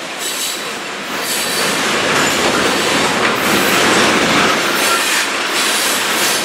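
Covered hopper cars of a long freight grain train rolling past close by, their steel wheels running loudly on the rails, with a brief faint wheel squeal about five seconds in.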